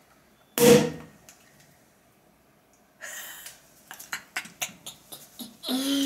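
Champagne cork popping out under a towel about half a second in, a single muffled pop. A few seconds later a short hiss and a run of light clicks and taps as the opened bottle is handled.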